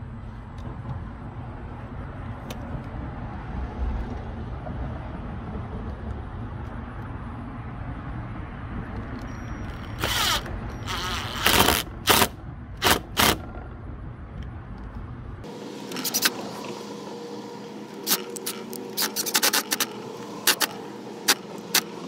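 Cordless Ridgid drill driving screws into a gate-lock mount in several short bursts, over a low steady rumble. After that comes a run of sharp clicks and small metallic taps.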